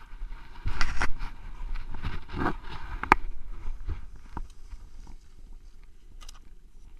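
Skis sliding and scraping over snow, with sharp clicks and knocks of skis and poles, loudest about a second in and again around two and a half to three seconds in, over a low rumble on the microphone.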